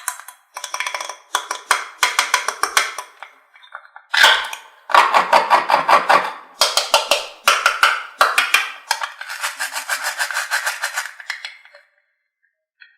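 Rapid hard clattering: many quick knocks a second in several bursts, stopping about a second before the end.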